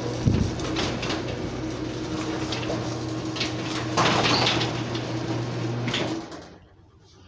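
Craftsman 139.539SRT1 garage door opener running, its motor humming steadily with a few knocks from the moving door, then stopping abruptly about six seconds in.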